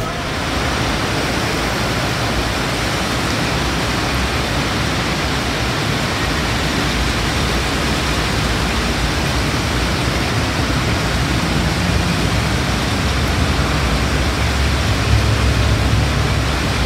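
Steady downpour of rain, an even hiss. A low rumble strengthens in the last few seconds.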